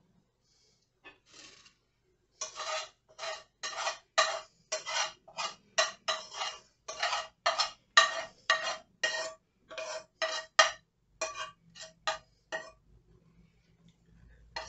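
A spoon scraping around inside a metal frying pan in quick repeated strokes, about two a second, each stroke setting the pan ringing with a steady tone. The strokes start a couple of seconds in and stop about two seconds before the end.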